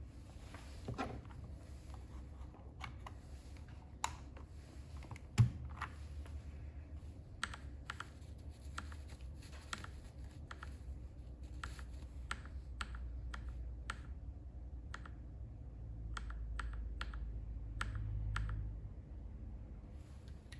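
Typing on a Keychron K4V2 aluminium-case mechanical keyboard with stock Gateron Red linear switches and ABS doubleshot keycaps: irregular keystrokes, with one sharper clack about five seconds in.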